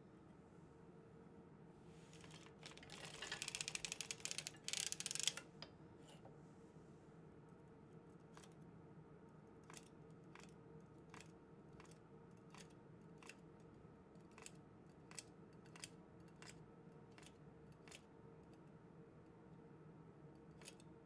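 Circular sock knitting machine clattering: a dense run of metallic clicks for about three seconds near the start, then single sharp clicks about every two-thirds of a second as the needles are worked.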